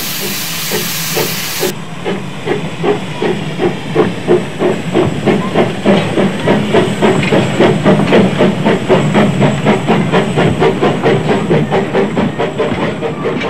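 Steam locomotive: a loud hiss of escaping steam that cuts off about two seconds in, followed by steady rhythmic chuffing of the exhaust, about three beats a second.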